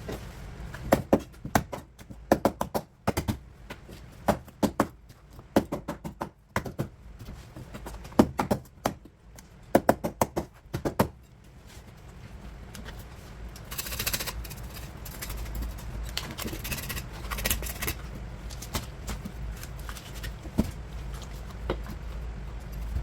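Knife knocking and tapping on a cutting board while a sea bass is cut up: irregular sharp knocks through the first half, then a few seconds of steady hiss.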